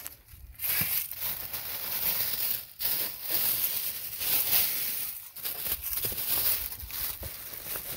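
Irregular rustling and crinkling with a few brief pauses.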